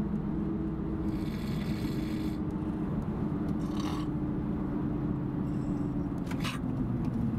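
Steady low hum of a car idling, heard inside the cabin, with a few brief faint hissy sounds over it.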